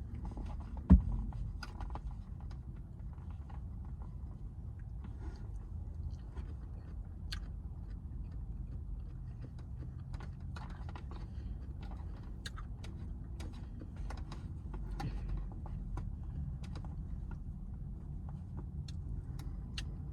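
Close-up eating sounds of coleslaw: scattered small crunches and mouth clicks from chewing, over a steady low rumble inside a car. One louder thump about a second in.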